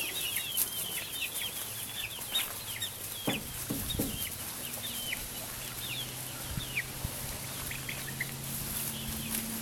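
Baby chicks peeping: many short, high chirps that fall in pitch, thick at first and thinning out later. A low steady hum comes in about halfway.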